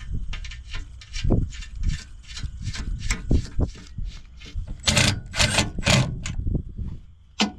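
Hand tools and sockets being handled: a run of quick sharp clicks, then several louder clanks and rattles in the second half.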